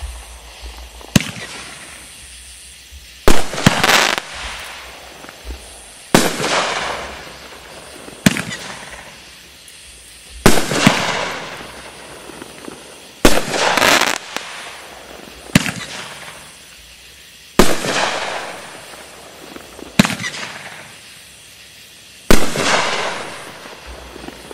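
Consumer multi-shot fireworks cake ('Fight Fire With Fire', 8 shots, shooting flaming balls) firing shot after shot. There is a sharp report about every two seconds, each followed by a fading hiss and crackle.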